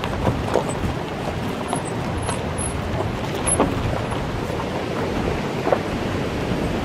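Suzuki Mehran rolling over a loose gravel and rock road: a steady low rumble of tyres on stones, with a few sharp knocks as the wheels hit stones and bumps.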